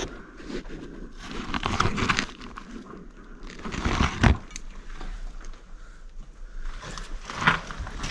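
Footsteps crunching and scuffing, in a few separate spells of steps with pauses between.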